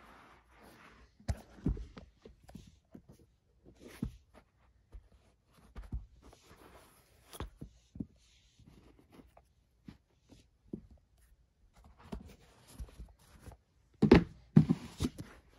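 Handling noise: scattered soft thumps and rustles, one every second or so, with a cluster of louder knocks about fourteen seconds in.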